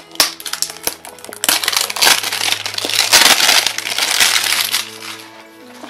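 Clear cellophane shrink-wrap being torn and peeled off a small cardboard toy box: a few light crackles, then from about a second and a half in a loud, continuous crinkling rustle that dies down near the end.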